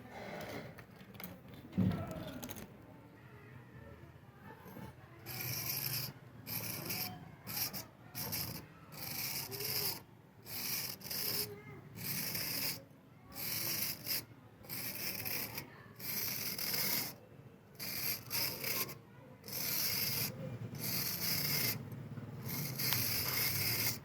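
Hand scrubbing of a rusty steel file: regular abrasive scraping strokes on metal, about one a second, as the rust is worked off. A single knock comes about two seconds in, before the strokes start.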